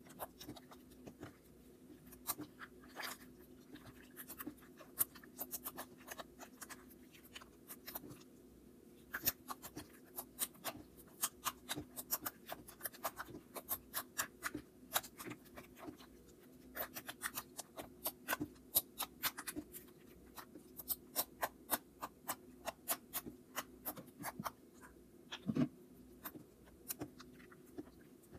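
Slime being kneaded and squished by hand against a granite countertop as extra water is worked into it: an irregular run of small wet clicks and pops, with one louder squelch near the end.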